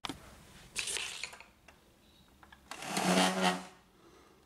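Powered screwdriver driving screws into the plastic side panel of an Epson WorkForce inkjet printer: a short whir about a second in, a few small clicks, then a longer, louder whir around three seconds in.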